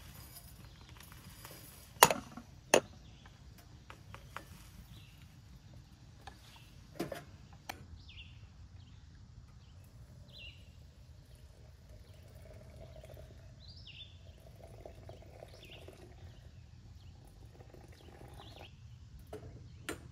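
Two sharp knocks about two seconds in and two softer ones around seven seconds. Then a bird calls over and over with short falling chirps.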